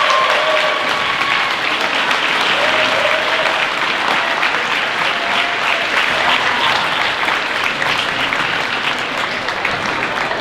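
Crowd of students applauding steadily, with a few cheering voices over the clapping in the first few seconds, easing off slightly near the end.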